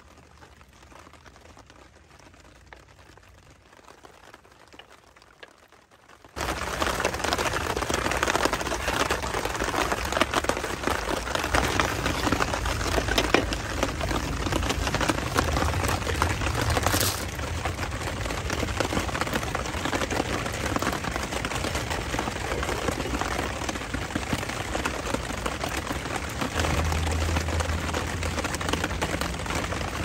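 Faint small ticks, then about six seconds in a sudden switch to steady rain falling on the tent, a dense even hiss of tiny taps.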